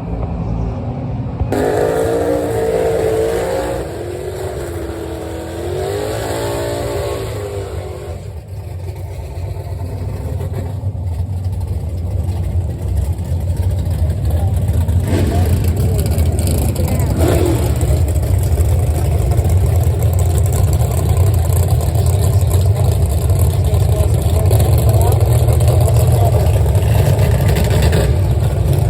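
Car engine rumble that builds steadily louder over the second half, with a person's voice talking over it for a few seconds early on.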